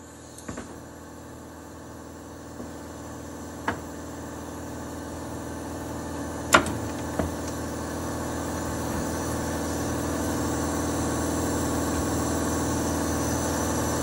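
A steady mechanical hum that slowly grows louder, with a few sharp metallic clicks, the loudest about six and a half seconds in, as the cut-open transmission cooler hose is worked off its metal line.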